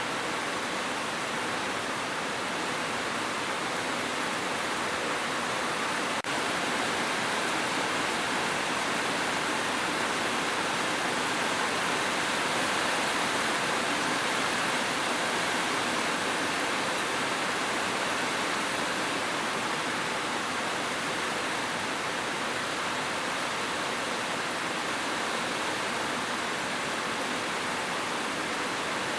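Steady rain, a dense even hiss with no single drops standing out, plus one faint click about six seconds in.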